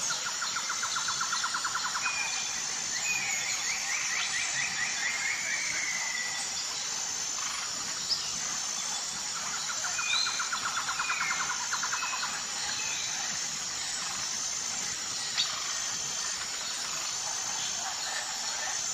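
Jungle ambience of birds calling, with fast pulsed trills, a longer sliding trill and short chirps, over a steady high-pitched insect drone.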